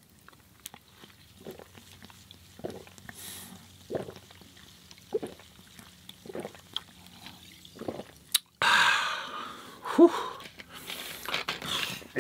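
A person swallowing a drink in gulps, one about every second, to soothe a dry throat. Near the end comes a sharp click, then a loud breathy exhale after drinking.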